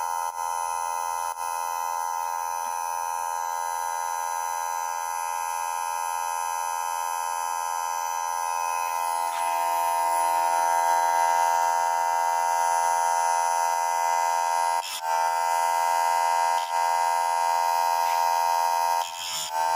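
An older electric chain saw sharpener's motor runs with a steady whine. Its pitch dips briefly about fifteen seconds in and again near the end, as the grinding wheel is brought down onto a cutter tooth of the chain.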